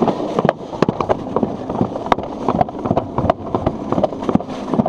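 Plastic alpine slide sled running fast down its track, a continuous rumble with frequent irregular knocks and rattles.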